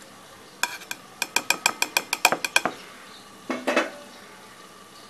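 Steel utensil knocked rapidly against a stainless steel mixer-grinder jar, about a dozen quick ringing clinks over two seconds while emptying grated coconut into it, then a shorter metallic clatter.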